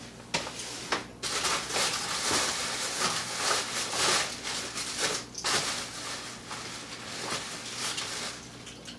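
Clear plastic packaging crinkling and rustling as it is handled and pulled out of a cardboard box, in a dense run of small crackles that fades near the end.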